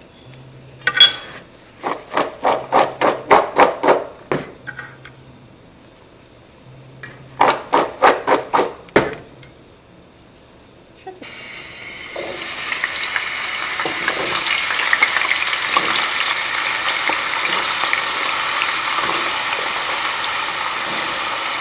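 Salted potato chunks being mixed in two short runs of quick rhythmic strokes, about four a second. About halfway through, the chunks go into hot oil and a loud, steady sizzle of deep frying starts.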